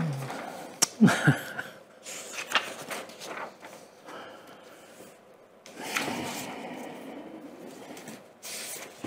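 Sheets of paper rustling and sliding on a desktop as they are shuffled through, in irregular spells with a few light knocks.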